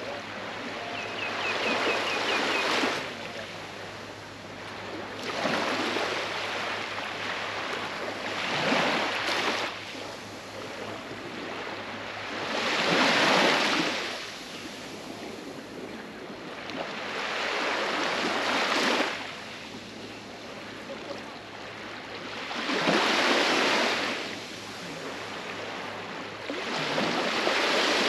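Small waves breaking gently at the water's edge of a sandy beach and washing up the shore. The surf swells and falls away about every four seconds.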